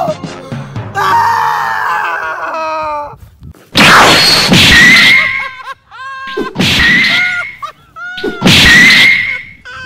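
A man's long scream, followed by three loud crashing blasts about a second long each, spaced about two and a half seconds apart: cartoon-style fight sound effects for punches.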